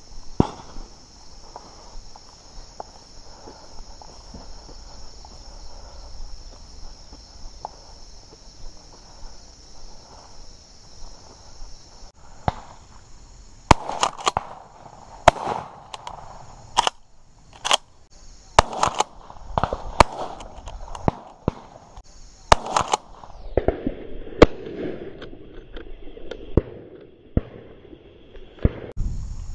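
Shotgun shots, mostly in the second half, coming about once a second. Some are loud and close and others fainter, over a steady high-pitched buzz.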